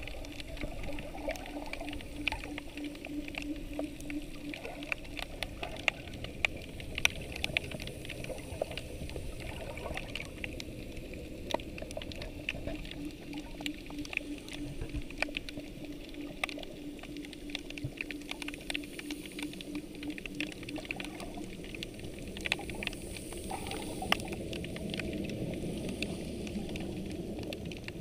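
Underwater ambience picked up by a submerged camera: a steady wash with many scattered sharp clicks and crackles, and a low steady hum that fades out about five seconds in and returns for a stretch in the middle.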